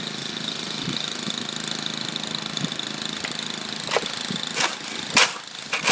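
A small engine running steadily, with four short sharp knocks or scrapes in the last two seconds.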